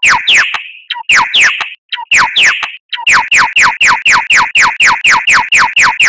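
Songbird song of the 'tembakan' (shot) kind: rapid, loud whistled notes that each sweep downward, about four or five a second. They come in short bursts with brief breaks, then run on unbroken from about halfway.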